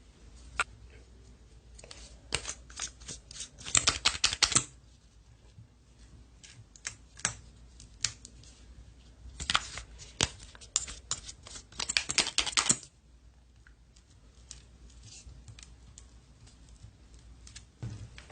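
Slime being handled, giving scattered sharp clicks and pops, with two bursts of rapid clicking at about four and twelve seconds in.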